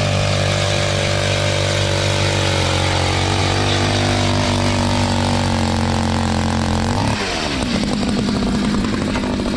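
Small gasoline engine of a powered ice auger running under load while drilling through the ice. Its pitch sags slowly, then shifts and rises sharply about seven seconds in.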